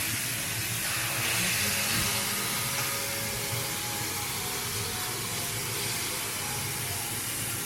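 Marinated beef bulgogi sizzling steadily on a Korean barbecue grill.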